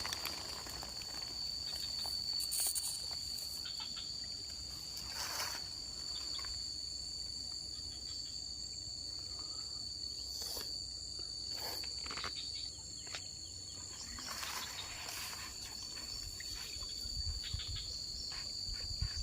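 Insects trilling steadily in one unbroken high-pitched chorus, with a few brief rustles or splashes.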